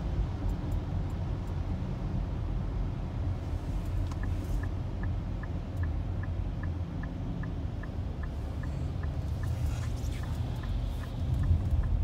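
Steady engine and tyre rumble heard from inside a car on a wet road. From about four seconds in, an evenly spaced ticking of about two and a half ticks a second joins it, typical of the turn signal clicking as the car approaches a turn.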